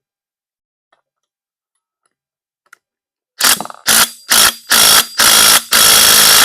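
Cordless power tool turning a 19 mm socket on a Stihl MS 291 chainsaw's clutch, run in six bursts of the trigger that grow longer, the last one the longest, starting about halfway in.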